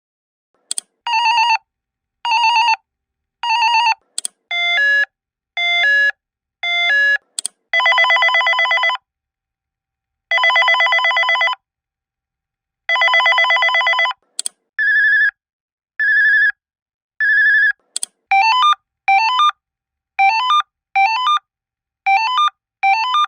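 Electronic alarm buzzer of a Qlight signal light cycling through different tone patterns. First come three steady beeps, then a high-low two-tone beep three times, then three long warbling rings, then three more steady beeps, and finally three pairs of short rising stepped tones, with a brief click each time the pattern changes.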